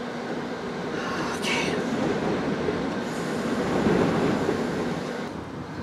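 Storm-force wind gusts blowing against a parked RV, heard from inside the cabin as a steady rushing rumble that swells to a peak about four seconds in and then eases off. The gusts are strong enough to lift the RV's right tires and rock it.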